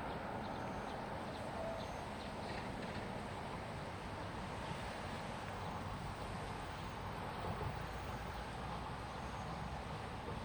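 Stream water rushing steadily, running full after rain.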